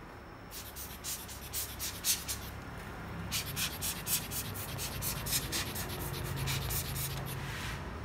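Quick scratchy rubbing strokes against a laptop motherboard, many strokes in two runs with a short pause about a third of the way in.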